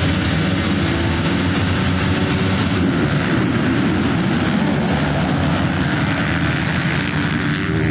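A field of motocross motorcycles running together at the start gate, many engines revving over one another in a dense, steady din.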